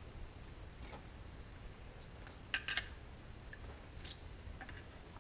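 A few short, sharp clicks and light taps as hands handle and turn a small old REO lawn mower engine during disassembly. The loudest are two quick clicks about two and a half seconds in, over a low steady hum.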